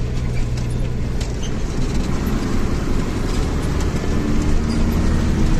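Bus engine running with the bus under way, a steady low drone with light scattered rattles.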